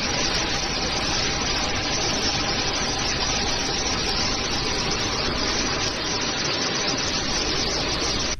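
Loud, steady rushing noise that cuts off abruptly at the end.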